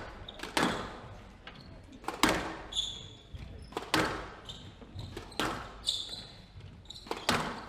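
Squash rally: sharp cracks of the ball off rackets and walls about every second and a half, five in all, echoing in the court. Short high squeaks of court shoes on the wooden floor come between the shots.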